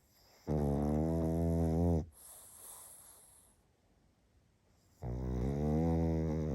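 Pug snoring: two loud, buzzy snores, each about a second and a half long, with a softer airy breath between them.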